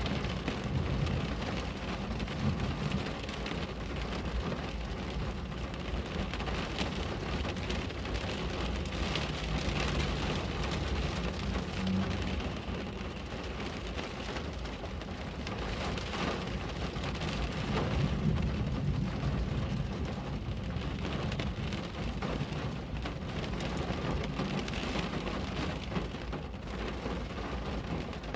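Steady rain pattering on a window, dense and even with many separate drop hits, over a continuous low rumble that swells about eighteen seconds in.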